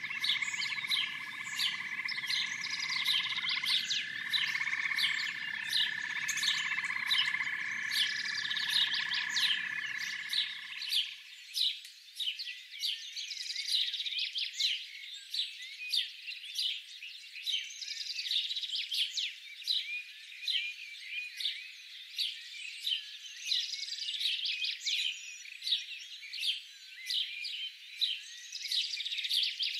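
A dense chorus of frogs giving rapid, high chirping calls. For about the first eleven seconds, a steady trilling tone and a low hum sound beneath the chirps, then stop abruptly, leaving only the chirps.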